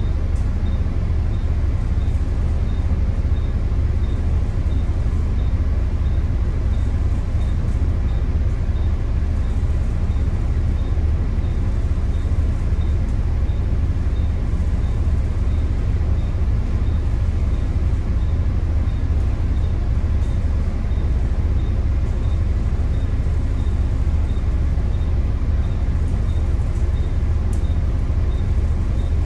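Volvo B9TL double-decker bus's 9-litre six-cylinder diesel engine idling steadily while the bus stands still, heard from inside the bus as a deep, even rumble. A faint regular ticking runs under it.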